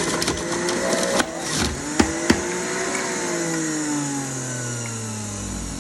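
Electric juicer's motor running while fruit and vegetables are fed through it, with a few sharp clacks. Its pitch then slides steadily down over the last few seconds as it winds down after being switched off.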